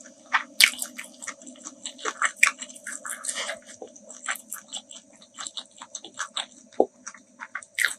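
Close-miked chewing of food, with many short, irregular wet smacks and clicks of the mouth.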